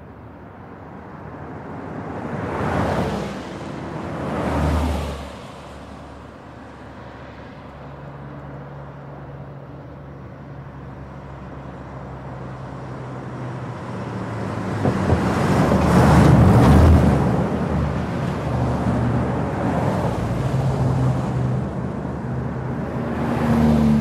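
Fast traffic on a trunk road: vehicles passing at speed with a rush of tyre and engine noise. Two quick passes come about three and five seconds in. A longer, louder pass with a steady engine hum builds through the middle and peaks past the halfway point, and another vehicle passes near the end.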